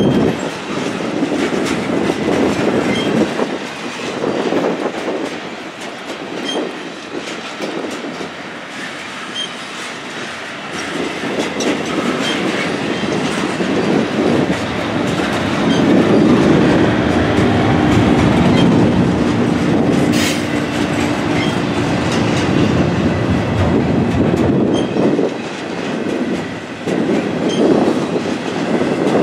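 Double-stack intermodal container cars rolling past, steel wheels running over the rails in a continuous, uneven rumble. A steady pitched wheel squeal comes in a little past the middle and holds for several seconds.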